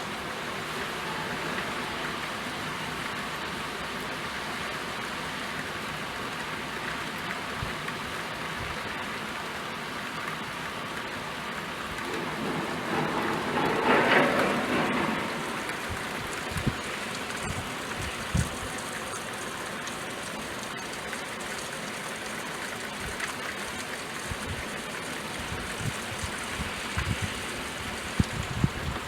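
Steady rainfall, swelling louder for a few seconds around the middle, with scattered sharp drips tapping near the end.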